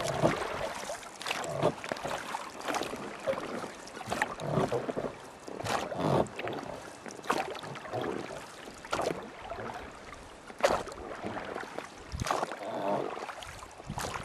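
Water splashing with knocks, coming in uneven strokes about a second apart over a steady hiss of moving water.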